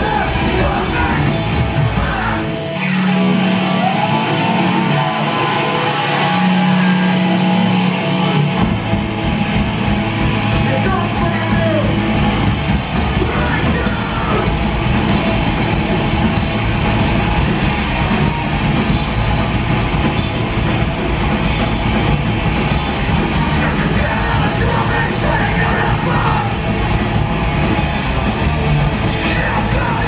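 Live punk band playing loud, with shouted vocals, distorted electric guitars, bass and drums. A few seconds in, the bass and drums drop out and leave the guitars and voice, and the full band crashes back in about a third of the way through.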